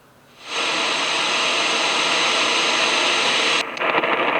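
A steady rushing hiss like white noise that swells in about half a second in, holds evenly, then loses its top end and flickers near the end.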